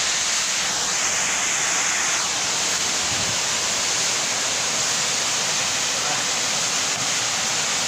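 A burst underground water pipe shooting a high jet of water into the air: a steady, loud rushing hiss of the jet and its spray that does not let up.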